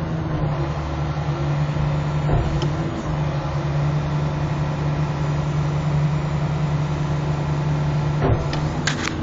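Hitachi 330 excavator's diesel engine and hydraulics running steadily, heard from inside the cab, while the demolition shear's jaws are closed and opened. A knock about two seconds in and a few sharp clicks near the end.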